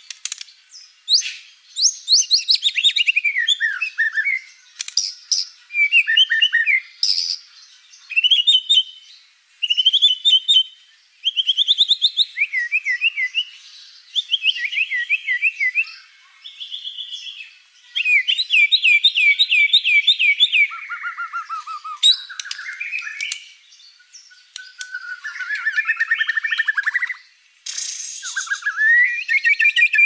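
Oriental magpie-robin singing: a long, varied run of whistled phrases, rapid trills and quick chirps, with short pauses between phrases.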